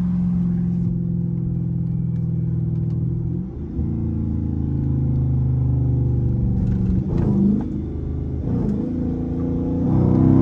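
Chrysler 300S's 5.7-litre HEMI V8 running loud on the move through an exhaust with the mid muffler and resonators deleted. It holds a steady drone, dips briefly about three and a half seconds in, and rises in pitch near the end as it accelerates.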